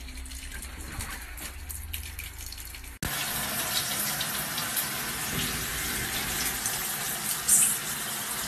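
Shower spray running steadily, starting abruptly about three seconds in after a quieter stretch with a low hum. A brief louder hiss comes near the end.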